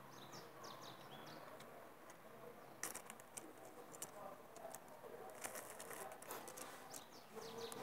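Quiet handling of a selfie-stick kit's plastic and metal parts: a few light clicks and knocks, the sharpest about three seconds in and a cluster in the second half. Faint short high chirps come near the start and again near the end.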